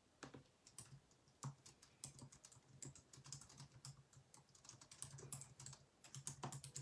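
Faint typing on a computer keyboard: quick, irregular clusters of key clicks.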